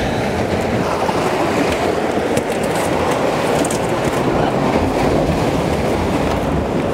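Ocean surf washing against coastal rocks as a steady rushing noise, with a deep rumble underneath.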